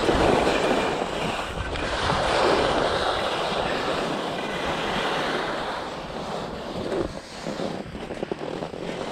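Rushing noise of skiing on a GoPro: skis sliding and scraping over hard, chalky snow mixed with wind buffeting the microphone. It is strongest for about seven seconds, then eases into rougher, uneven scraping near the end.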